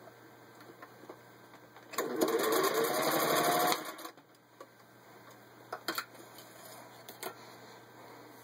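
A 1936 Singer 201 sewing machine stitching through a 1/8-inch-thick leather-like belt, running in a fast, even rattle for about two seconds with its motor whine rising as it speeds up, then stopping. A few light clicks follow.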